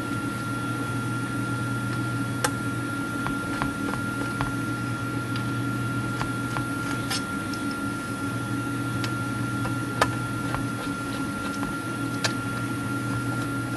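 Steady low background hum with a thin, steady high whine. Over it come scattered faint clicks and scrapes, a few seconds apart, as a hand countersink is twisted into the pivot holes of a brass clock plate to clear the burrs.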